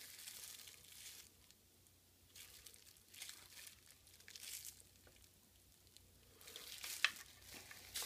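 Thin plastic bag crinkling in faint, intermittent rustles as a laptop-style power adapter brick and its coiled cord are handled and unwrapped, with a short sharp click about seven seconds in.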